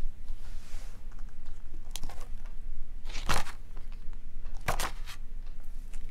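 Paper pages of a large book being turned by hand: a few short rustles, the loudest about three seconds in and another a second and a half later.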